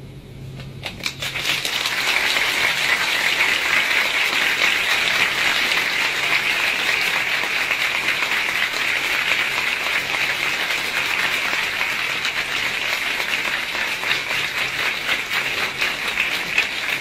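Audience applauding, the clapping building up over the first two seconds and then holding steady.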